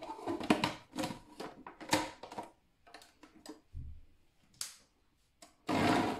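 Hard plastic clicks and knocks as the food processor's feed-tube pusher is fitted into its lid, then near the end the food processor's motor starts up on pulse, chopping onions.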